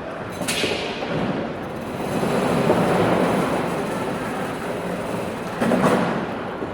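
Airport background noise: a steady rumbling rush that swells about two seconds in and eases off again. There are two short sharp noises, one about half a second in and one near the end.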